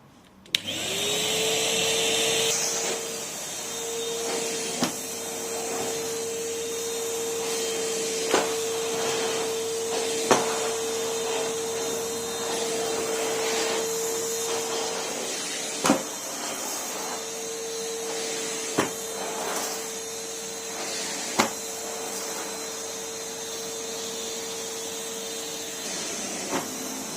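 Numatic Henry vacuum cleaner switched on about half a second in, its motor spinning up to a steady hum and then running steadily. A few short sharp clicks sound over it at intervals.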